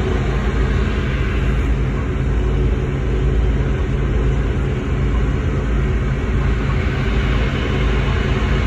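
A ferry's engines droning steadily, with wind buffeting the phone's microphone on the open deck.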